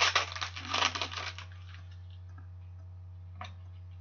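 Hockey trading cards being handled and sorted by hand: a crinkling, rustling noise for about the first second and a half, then a couple of light taps. A steady low hum runs underneath.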